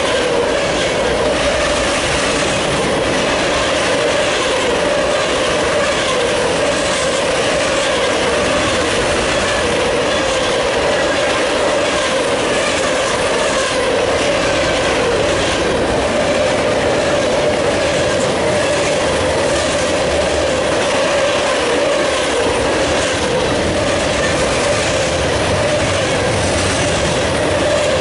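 Freight cars of a mixed freight train, covered hoppers and tank cars, rolling past at about 48 mph. Steel wheels rumble and clatter steadily on the rails, with a steady whining tone underneath.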